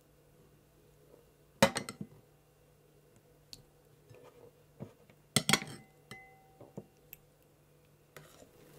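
A ladle clinking against glass mixing bowls as thick yogurt is spooned out and into a bowl on a kitchen scale. There are two sharp clinks about four seconds apart, the second followed by a brief ring of glass, with lighter taps and soft scrapes in between.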